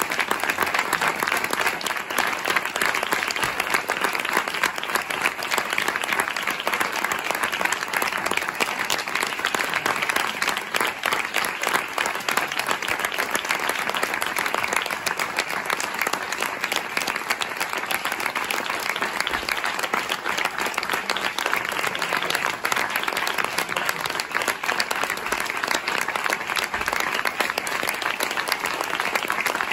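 Theatre audience applauding, dense many-handed clapping that holds steady without a break.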